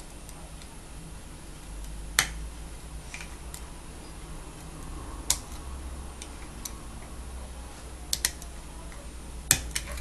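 Metal lock picks clicking in a cruciform lock as it is single-pin picked a second time to drive the bolts fully over. Sharp clicks a few seconds apart, with a quick pair late on.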